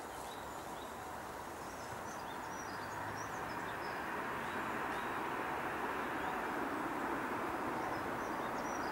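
Lufthansa Airbus A380's four Rolls-Royce Trent 900 jet engines on a low approach: a steady rushing engine noise that grows louder as the airliner comes closer. Small birds chirp faintly over it.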